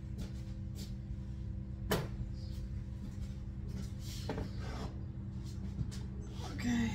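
Kitchen handling noises: one sharp knock about two seconds in, then softer scrapes and clatter, over a steady low hum.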